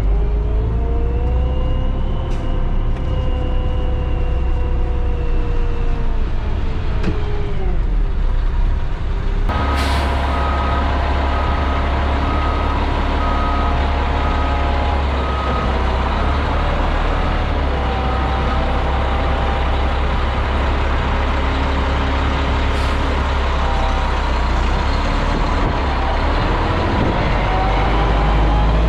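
Concrete mixer truck's diesel engine running with a heavy low rumble, its pitch rising and falling as the truck is manoeuvred. About ten seconds in the engine note steps up and a reversing beeper sounds in even beeps for several seconds as the truck backs up.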